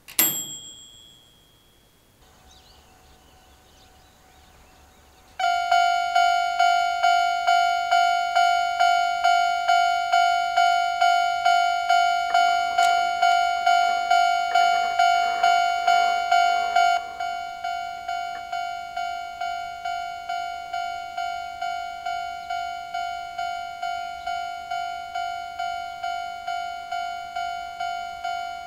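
Japanese railway level-crossing alarm sounding the older-type standard bell: a fast, evenly repeating electronic ding with a ringing tone. It starts about five seconds in and drops noticeably in volume about two-thirds of the way through. A single short sharp ding sounds at the very start.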